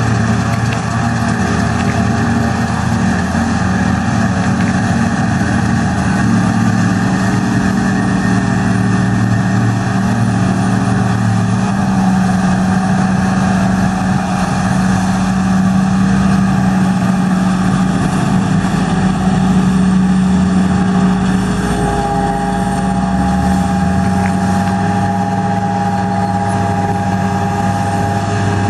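John Deere 7750i forage harvester and a New Holland tractor running steadily under load while the harvester chops grass into the tractor's silage trailer, a continuous loud machine drone. A higher steady whine joins about three-quarters of the way through.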